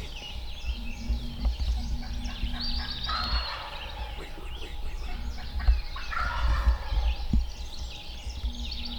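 Wild turkey gobbler gobbling twice, about three seconds in and again about six seconds in, with songbirds chirping.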